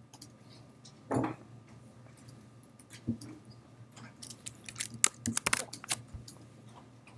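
Scattered small clicks and rattles, with a brief soft bump about a second in and a dense cluster of sharp clicks between about four and six seconds.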